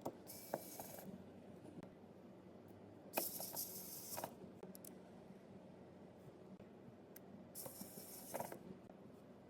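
Small screws being driven into a smartphone's frame with a precision screwdriver: three short, faint bursts of rasping, each about a second long, near the start, a few seconds in and near the end.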